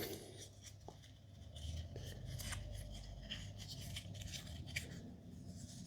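Faint handling noise, with light rubbing and a few small clicks, as spare nose-bridge pads for a pair of sunglasses are taken out of their packaging.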